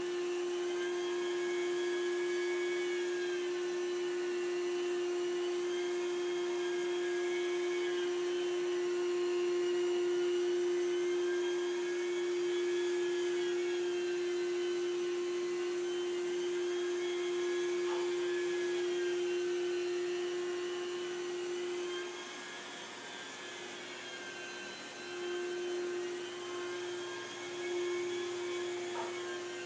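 Rotary carpet-extraction machine running with its vacuum on: a steady motor hum under a higher whine that rises and falls every few seconds. Near the end the hum dips and wavers.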